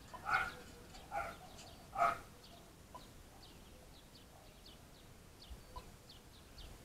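A dog barking three times, a short bark about every second, with small birds chirping faintly throughout.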